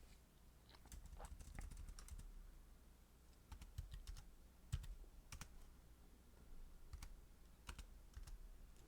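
Faint computer keyboard typing: irregular key clicks, some louder than others.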